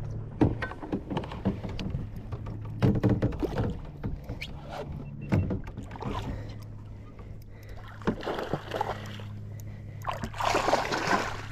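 Scattered knocks and clicks of gear being handled on a kayak while a hooked redfish is played, over a steady low hum. A brief rush of noise comes near the end.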